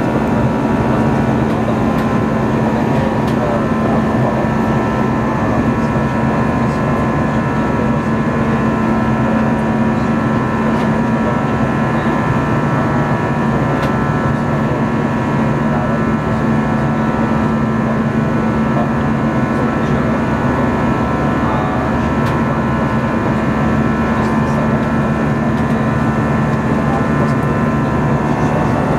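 Steady jet engine drone and rushing airflow heard inside the cabin of an Airbus A321 in the climb after takeoff, a constant low hum with higher steady tones and no change in level.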